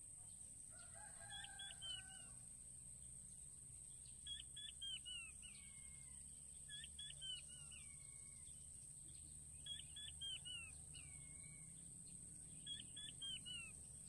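Blue-breasted quail (puyuh batu) calling faintly: a quick run of three or four falling whistled notes, sometimes ending in a longer downward slide, repeated about every three seconds.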